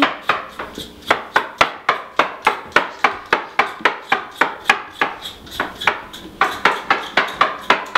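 A steady rhythm of sharp clacking strikes, about four a second, evenly spaced throughout.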